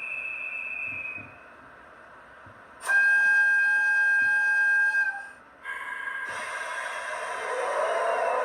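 DCC sound decoder in a model EF64 electric locomotive playing through its small speaker: a brief high whistle tone, then a loud steady whistle blast of about two and a half seconds, then running sounds with a whine that rises in pitch near the end as the locomotive departs.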